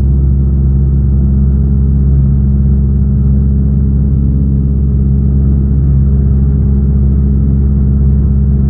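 Cessna 172N's four-cylinder Lycoming engine and propeller droning steadily in flight, at an unchanging pitch.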